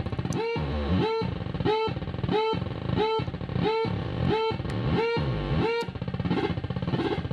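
Homemade sound effects synth putting out a repeating electronic alarm-like tone: about eight even pulses, roughly one and a half a second, each a short rising blip with a buzzy edge. About six seconds in it changes to a denser, warbling buzz.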